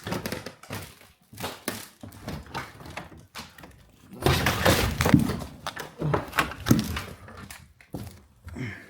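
Someone climbing a staircase with difficulty: a run of footsteps, knocks and thuds, loudest in a dense crunching stretch about four to five seconds in.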